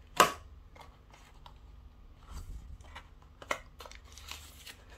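Packaging being handled as a box is opened: one sharp click just after the start, then scattered light taps and short rustles of cardboard and plastic.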